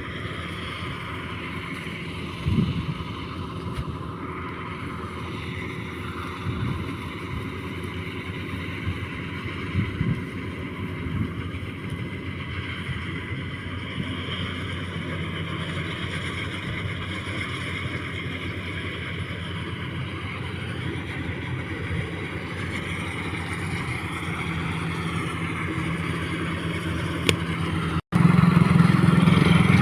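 An engine running steadily, with a sudden jump to a much louder engine sound a little before the end.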